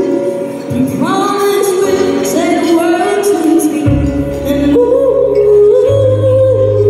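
A woman singing a slow song live into a microphone over backing music through a PA, with long held notes; deep bass notes come in about four seconds in.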